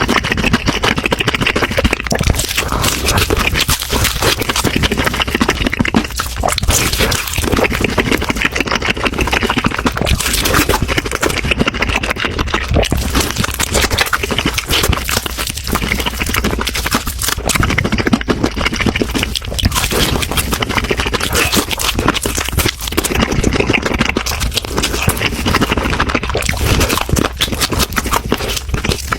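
Close-miked eating sounds: a dense, continuous run of chewing, smacking and crackling clicks as a person eats.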